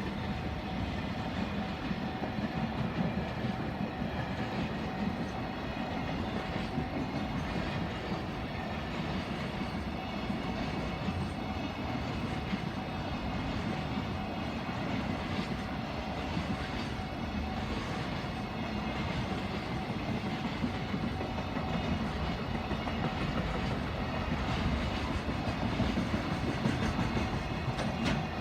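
Electric train passing through a Japanese level crossing, its wheels clattering over the rails in a steady run, while the crossing's warning bell keeps ringing.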